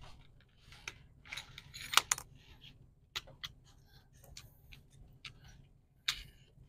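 Small clear plastic blade case and its plastic bag handled in the hands: irregular crinkling rustles and sharp little clicks of the case, the loudest click about two seconds in.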